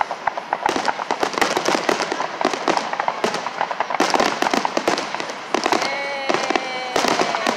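Fireworks finale: a rapid, near-continuous barrage of shell bursts and crackling reports. Near the end a held, slightly falling tone sounds over the bangs.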